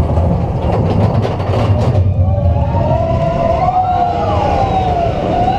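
Expedition Everest roller coaster train rumbling along its track. About two seconds in, its wheels start a wavering squeal.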